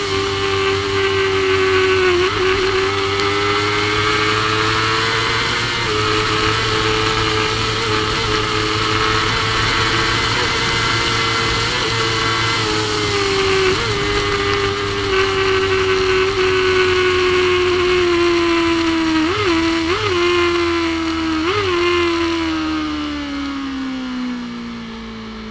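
Supersport racing motorcycle engine at high revs, held near flat out at speed with a steady high note and a few brief flickers in pitch. Near the end the revs fall and the sound gets quieter.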